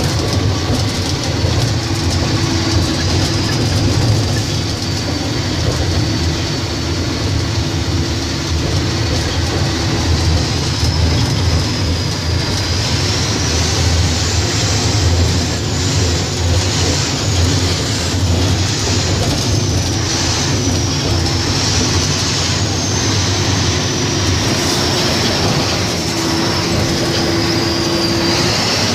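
Large mining dump truck driving along a haul road, heard from its cab: a steady low diesel rumble with a high whine that wavers up and down in pitch.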